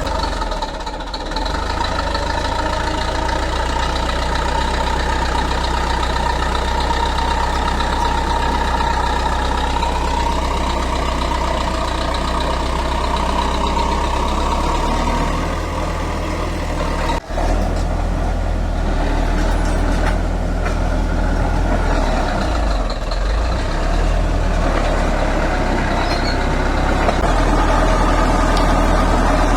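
Heavy construction machine's engine running continuously, its pitch shifting about ten seconds in, with a momentary drop-out about seventeen seconds in.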